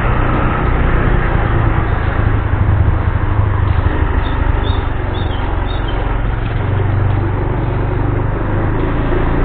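Motor scooter engine running steadily while riding, with the rush of road and wind noise. A few faint, short high chirps come about halfway through.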